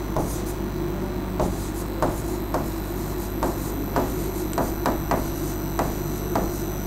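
A pen or stylus tapping and knocking against the screen of an interactive display board while handwriting is written on it, in irregular taps about one or two a second. A steady electrical hum runs underneath.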